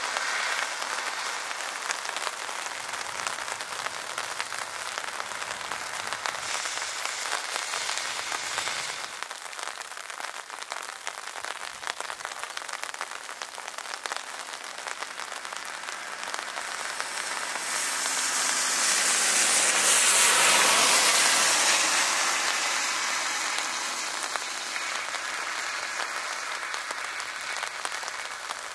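An Airbus A400M's four turboprop engines heard through steady rain hiss. The engine noise swells to a loud peak about twenty seconds in, then fades.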